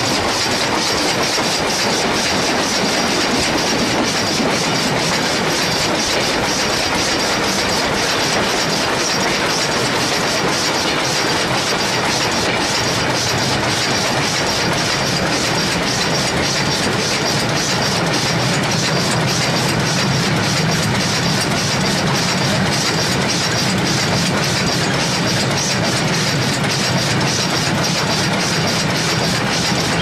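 Steam locomotive running along the track, heard close to its driving wheels and rods: a steady rumble and clatter of wheels on rails with rapid fine clicking throughout. A low hum grows stronger about halfway through.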